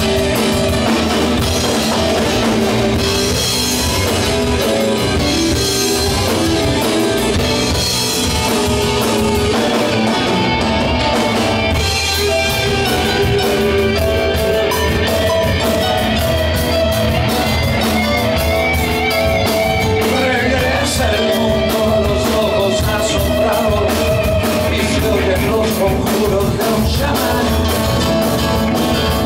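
Live prog rock band playing: Yamaha Motif 6 synthesizer keyboard, electric bass guitar and drum kit.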